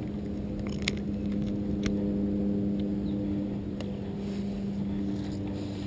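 A steady low hum from an engine or motor running at a constant speed, with a few faint clicks.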